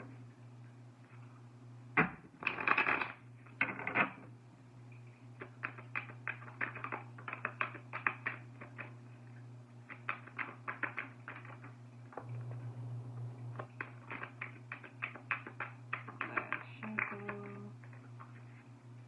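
A deck of oracle cards being shuffled by hand: a long run of quick card flicks and slaps, with a few louder bursts near the start, over a steady low hum.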